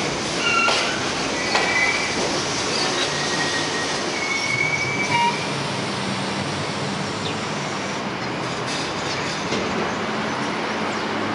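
R42 subway train pulling into an elevated station, its wheels squealing in high tones and clicking over rail joints as it brakes to a stop about halfway through. Then the stopped train gives off a steady hum.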